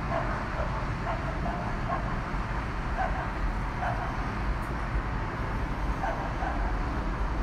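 A dog barking on and off, a handful of short barks over a steady low rumble of city noise.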